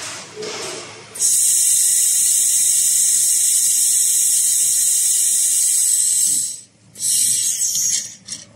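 Handheld fiber laser welder welding aluminium: a loud, steady hiss starts about a second in and lasts about five seconds. It breaks off briefly and comes back for about another second before stopping.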